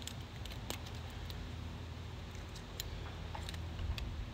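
A few scattered light clicks and taps from small yard-golf game parts (flags and tees) being handled, over a steady low background rumble.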